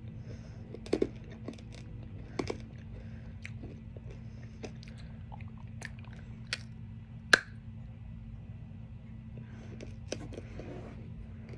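Teeth biting and crunching a hard-candy lollipop. There are sharp cracks about a second in and again around two and a half seconds, and the loudest comes at about seven seconds, with smaller clicks between them over a steady low hum.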